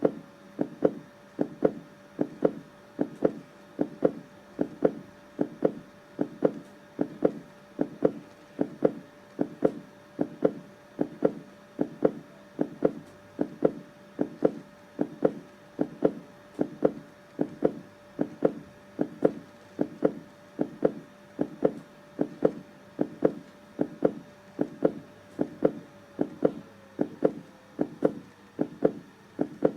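Heartbeat sound: steady, evenly paced lub-dub double thumps, a little over one a second. A faint steady tone sits underneath and fades out about 27 seconds in.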